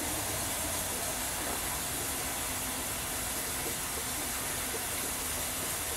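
Narrow-gauge steam locomotive standing in steam, giving a steady hiss.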